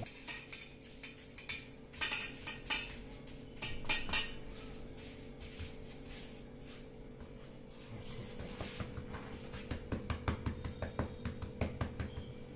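Hands working potato and samak-rice dough in dry flour on a stainless steel plate, with scattered clinks and scrapes on the metal. From about eight seconds in come quick soft pats and taps as the dough is pressed flat.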